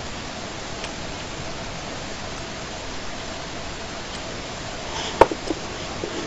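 Wooden burr puzzle pieces clicking and knocking together as they are handled, a few light clicks with the sharpest about five seconds in, over a steady hiss.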